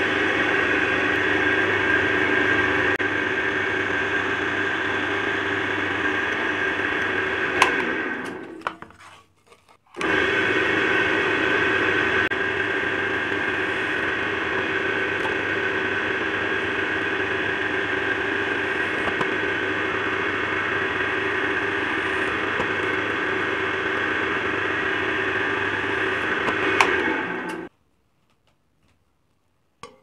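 Bench drill press running steadily while a 7 mm twist bit drills through a thin metal disc. The sound dies away about nine seconds in, starts again abruptly a second later, and stops suddenly near the end, with a sharp click shortly before each stop.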